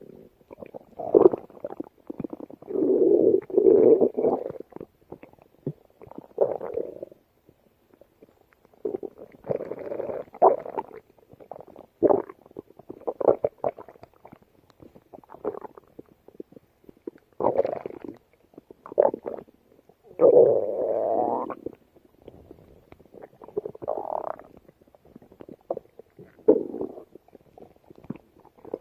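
Stomach growling and gurgling in irregular bursts, some short and some lasting a second or two, with brief pauses between them.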